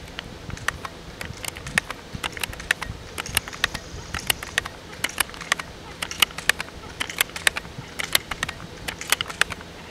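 Seneca Dragonfly Mk2 multi-pump .22 air rifle being pumped up: a long series of sharp clicks and clacks from the pump lever, several a second, as each stroke charges the air cylinder, here to ten pumps.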